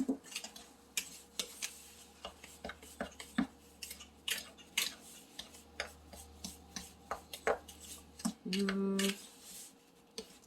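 A fork clinking and scraping against a mixing bowl in many quick, irregular clicks while stirring a damp, sand-like powder mix.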